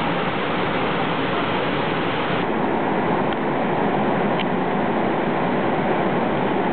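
Steady rushing of whitewater pouring over creek waterfalls and drops. About two and a half seconds in, the high hiss abruptly thins and the rush continues.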